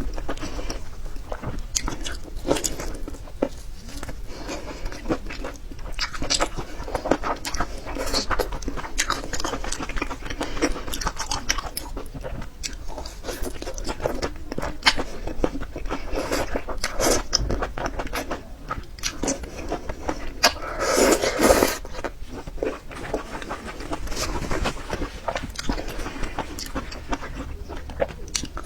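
Close-miked eating: steady wet chewing and crunching with many small crackles, and a louder burst of crunching or slurping about three-quarters of the way through.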